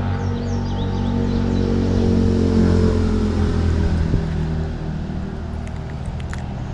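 A steady engine drone going by, its pitch sinking slightly about two to three seconds in, then easing off a little.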